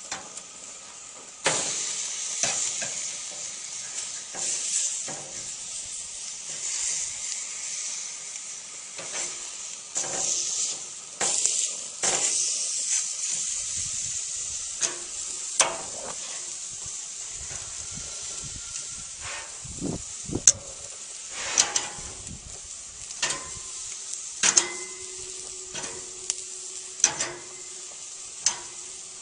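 Meat sizzling on a grill grate, with metal tongs clicking and scraping on the grate as the pieces are lifted off. The sizzle fades in the second half while sharp clicks of the tongs go on.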